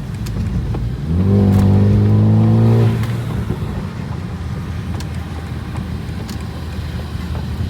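Car engine accelerating hard under steady road noise. Its note climbs quickly about a second in, holds loud and even for about a second and a half, then drops away.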